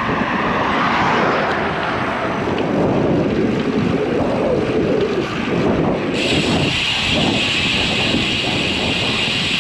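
Wind buffeting the microphone on a moving road bicycle. About six seconds in, a steady high hiss joins it.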